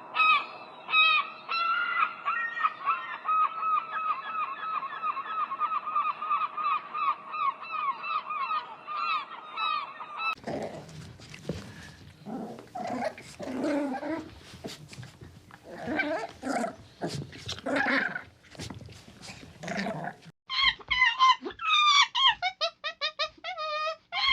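A series of animal calls. First comes a run of rapid, evenly repeated high-pitched calls, about four a second. About ten seconds in it gives way to harsher, coarse calls, and near the end to quick, squeaky falling calls.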